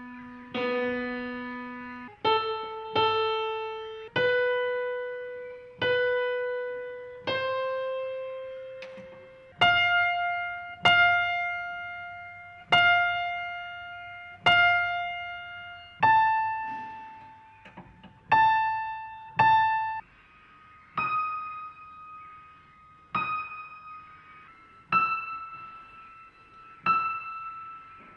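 Grand piano playing a slow melody one note at a time, each note struck and left to ring out and fade before the next, the line climbing higher over the first half and staying high.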